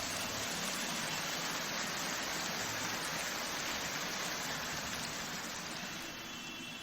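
Steady rushing hiss of noise without any tone or beat, slowly fading towards the end.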